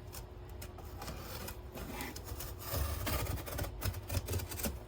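A blade cutting through a cardboard box: irregular scraping and rasping strokes with scattered clicks and handling knocks.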